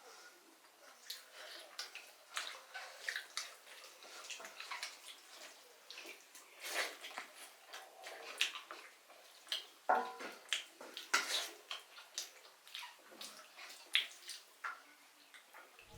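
Water splashing and dripping, with many irregular wet clicks and small splashes.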